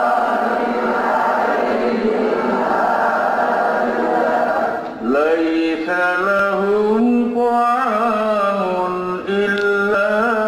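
A man's voice reciting the Qur'an in melodic tajweed style, holding long drawn-out notes. About five seconds in, a brief break leads into a new phrase of held notes that glide up and down.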